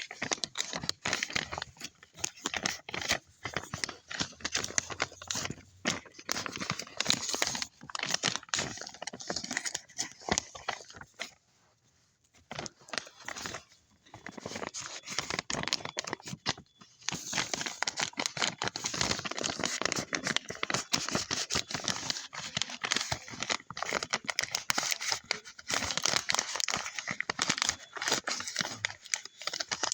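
Continuous crinkling, rustling noise made of dense irregular crackles, with a short lull about twelve seconds in.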